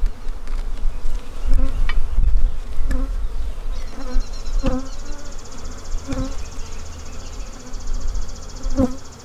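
Honeybees buzzing around an opened hive, with single bees buzzing close past several times. A low rumble is loudest between about one and a half and two and a half seconds in, and a thin high-pitched buzz joins about four seconds in.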